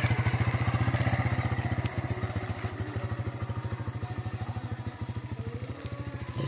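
Small motor scooter's engine running in an even, rapid pulse as it rides away along a dirt path, fading steadily as it goes.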